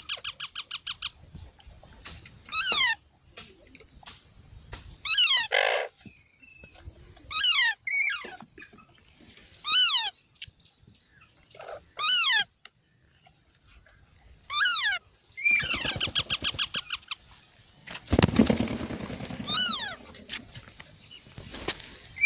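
Baby parrots calling: a shrill falling screech repeated about every two to three seconds, with rapid raspy chattering near the start and again about two-thirds of the way in. A loud rustling burst comes just after the second chattering, the loudest moment.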